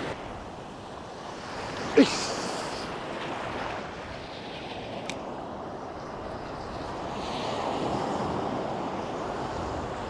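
Ocean surf washing onto the beach, swelling and easing, with wind buffeting the microphone. About two seconds in a brief, sharp sound drops in pitch, the loudest thing here.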